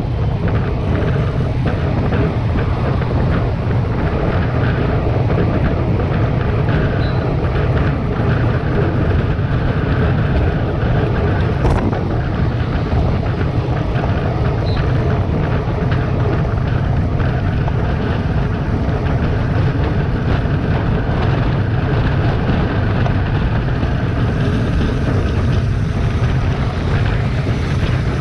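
Steady wind rush over the camera microphone and tyre noise from a road bike riding at about 45 km/h, with one sharp knock about twelve seconds in.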